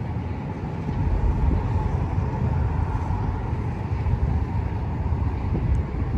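Low, steady diesel engine rumble from a tug and barge moving through the harbour, with a faint steady tone above it.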